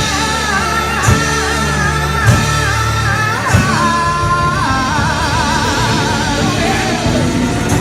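Live rock band playing with singing over electric guitar and drums, with drum hits about once a second, then a long held note with vibrato in the second half.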